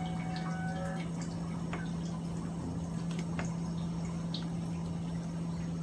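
Chicken-feet soup with vegetables simmering in a pot: scattered bubbling pops and drips over a steady low hum.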